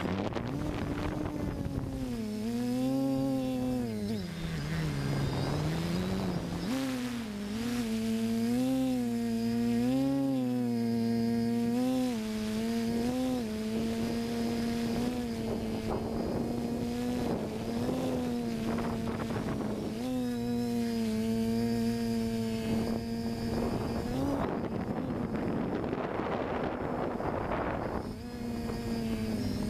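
Electric motors and propellers of a TBS FPV multirotor drone, heard through its onboard camera: a buzzing hum whose pitch follows the throttle. The pitch dips low around five seconds in and wavers up and down repeatedly, then holds steady from about halfway through, over a rush of air noise.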